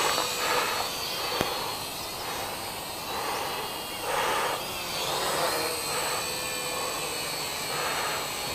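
Micro quadcopter's small coreless motors and propellers whining in flight, the buzz swelling and dipping with the throttle. A single sharp click about one and a half seconds in.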